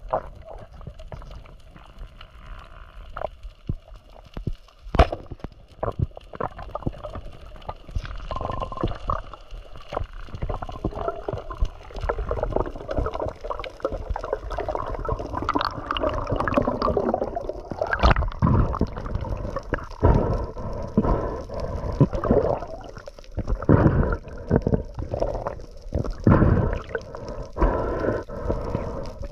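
Water gurgling and sloshing, with irregular bubbling pops and knocks that grow busier in the second half.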